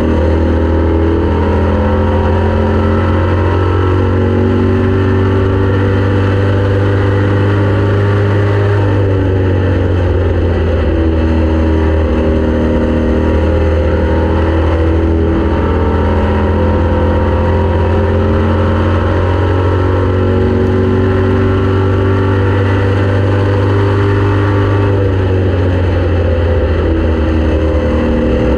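Race car engine running hard through a race, its pitch dropping twice, about ten seconds in and near the end, and climbing back up after each.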